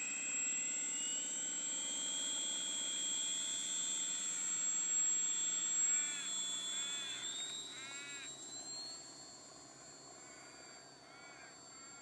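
Electric motor and propeller of a battery-powered model aircraft running as it is hand-launched: a steady high whine that rises in pitch, loud for the first six seconds, then fading as the plane flies off.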